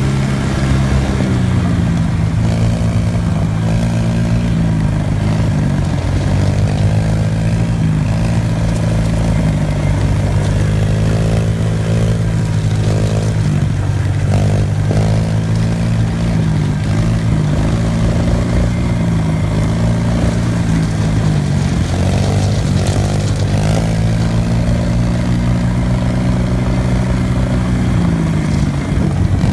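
Small off-road engines running at riding speed, the nearest one steady with its pitch dipping and rising again every few seconds as the throttle is eased and opened. The Kawasaki KLX110 dirt bike, a small four-stroke single, runs just ahead.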